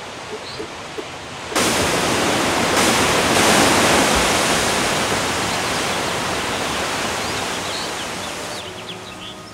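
Ocean wave crashing: a soft hiss, then about one and a half seconds in a loud rush of surf and spray breaks in suddenly, peaks a couple of seconds later and slowly dies away.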